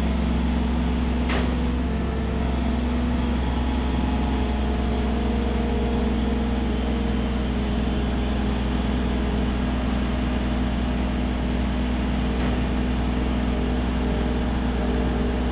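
Crane engine running steadily under load as it lifts a 22,000–23,000 lb sailboat hull on a single cable: a constant low hum with a steady tone. A single short click about a second in.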